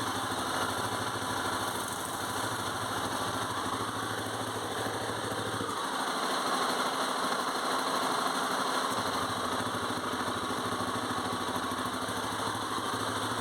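Honda XR 250 Tornado's single-cylinder four-stroke engine idling steadily without any cam chain rattle: a new cam chain tensioner has restored tension on the slack timing chain.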